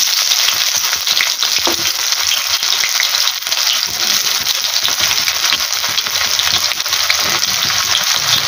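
Sliced onions frying in hot mustard oil with cumin seeds in a kadai: a loud, steady sizzle that starts suddenly as the onions go into the oil.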